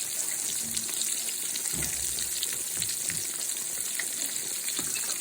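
Cornmeal-breaded green tomato slices sizzling steadily in hot oil in a frying pan, with fine crackling.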